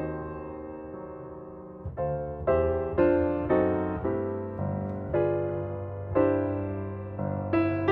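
Background piano music: notes and chords struck about twice a second and each left to fade.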